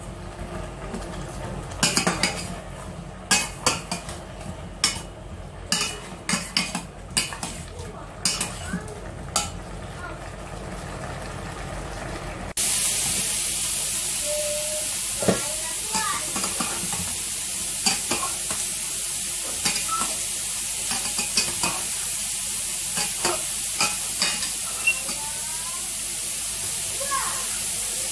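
Spiced cauliflower being stirred with a spatula in a stainless steel saucepan, with repeated knocks and scrapes against the pot. About halfway through, a steady, loud sizzle starts suddenly and carries on under the stirring.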